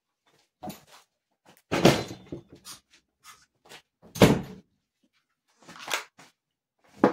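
Several short, irregular knocks and bumps from someone moving about a small room, the loudest about two and about four seconds in, with a sharp knock near the end.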